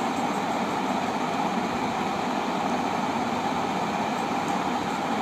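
Steady, even background hiss of room noise with no speech, holding at one level throughout.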